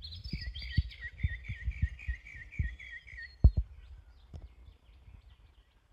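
Footsteps thudding on grassy ground at a walking pace, with a bird calling a quick run of about a dozen repeated notes over the first three seconds. A heavier thump comes about three and a half seconds in.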